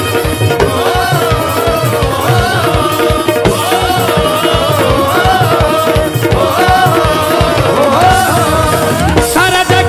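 Live Indian devotional band music: tabla keeping a steady beat under a melody line that slides and bends in pitch.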